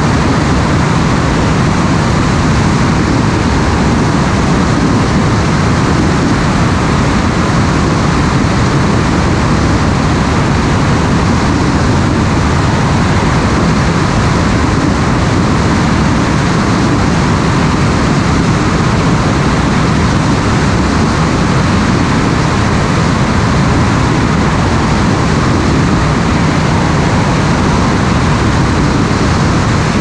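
Loud, steady rush of wind over the microphone of a camera mounted on an aircraft in flight.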